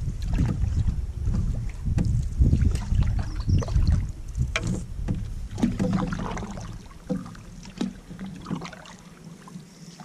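A canoe being paddled on calm water: paddle strokes splash and drip, with scattered light knocks on the hull. Under them runs a low rumble that eases off about seven seconds in.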